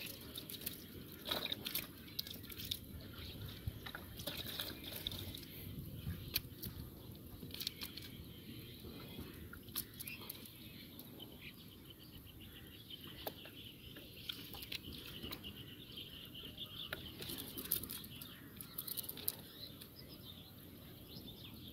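Wet mud and a fine-meshed fishing net being handled, with scattered small squelches, drips and clicks as small fish are picked out of the net by hand.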